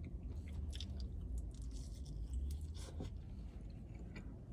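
A person chewing crunchy boneless Korean fried chicken, with faint intermittent crunches.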